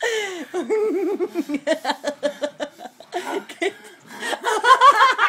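People laughing and giggling in repeated bursts, with a lull past the middle and the loudest laughter near the end.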